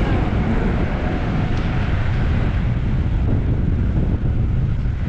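Wind buffeting the microphone: a loud, steady low rumble and rush.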